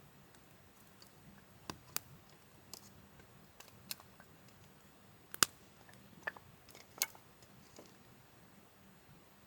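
Wood fire crackling, with irregular sharp pops; the loudest pop comes about five and a half seconds in.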